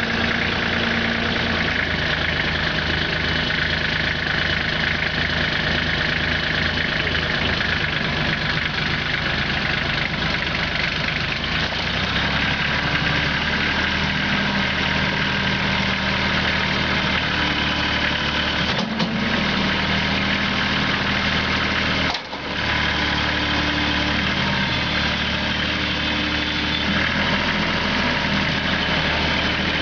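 Kubota L3540 tractor's three-cylinder diesel engine running steadily at idle. Its note shifts about 12 seconds in, and it breaks off briefly twice about two-thirds of the way through.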